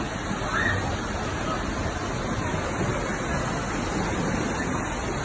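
Fast floodwater rushing through a street: a steady, loud rush of water.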